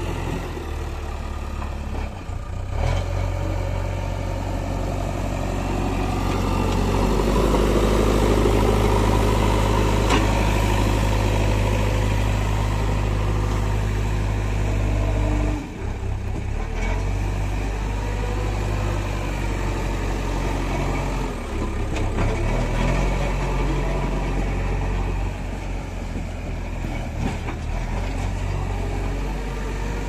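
JCB 3DX Xpert backhoe loader's diesel engine running steadily while the machine works, growing louder for several seconds as it pulls harder. The engine note breaks off suddenly about halfway through and again a few seconds later.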